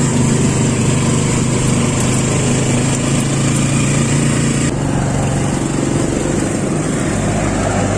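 A motor vehicle's engine running steadily: a low hum over a haze of road and engine noise.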